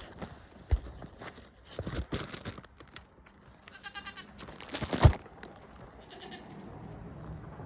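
Nigerian Dwarf goat bleating, a short high call about four seconds in and a fainter one near six seconds, among rustling and bumps of cloth against the microphone, the loudest bump a little after five seconds.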